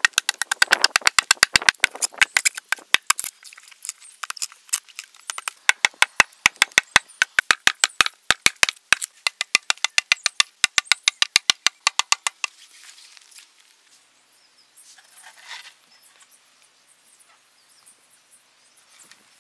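Rotten, crumbly wood being scraped and broken out of a hollow log by hand, a rapid even run of crackling scrapes about five a second. About twelve seconds in it gives way to fainter, scattered scraping.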